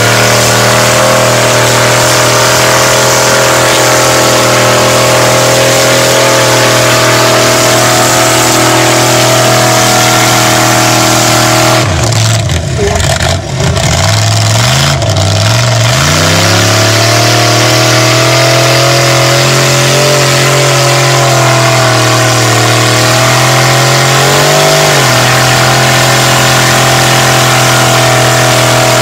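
Mud bog buggy's engine held at high revs as its tires spin in deep mud. About twelve seconds in, the revs drop off sharply, then climb back up to a steady high pitch within a few seconds, with a brief waver later on.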